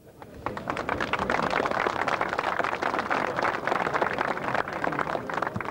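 A large crowd applauding, a dense patter of many hands clapping that starts about half a second in and dies away near the end.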